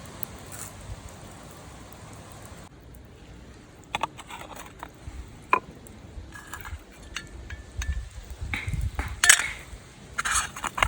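Light clinks and knocks of small hard objects being handled, with one sharp clink about five seconds in and busier handling near the end, after a steady hiss that cuts off about three seconds in.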